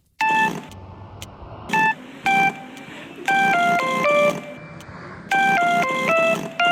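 Horse lip-blowing sound, buzzy and pitch-shifted to different notes, playing a phone ringtone melody. A few single notes come first, then two quick runs of about five notes each.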